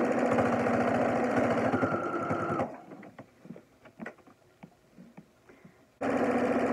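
Electric sewing machine stitching a straight seam around the edge of a cloth face mask. It stops after about two and a half seconds, leaving faint clicks and fabric rustling while the cloth is repositioned, then starts stitching again abruptly near the end.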